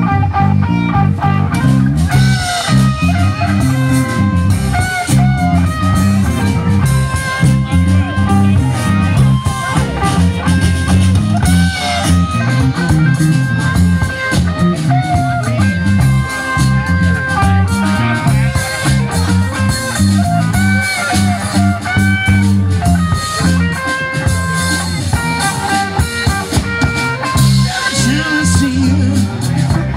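Live electric blues-rock band, with electric guitars, bass guitar and drum kit, playing an up-tempo song through a PA, starting abruptly out of crowd chatter.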